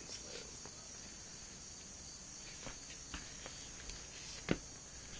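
Crickets chirring steadily, with a few short sharp taps on the concrete, the loudest about four and a half seconds in.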